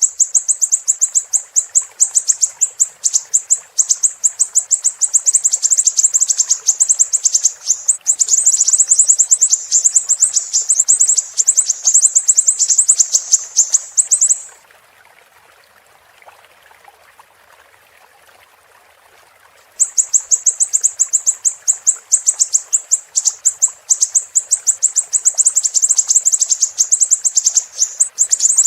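Siri-siri bird singing: a long run of rapid, shrill, high-pitched chirps. It breaks off a little past halfway for about five seconds, then starts again.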